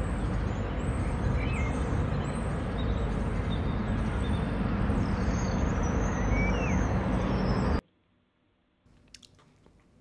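Outdoor ambience: a steady rumble of road traffic with birds chirping and giving short sweeping calls over it. It cuts off suddenly near the end to quiet room tone with a few faint clicks.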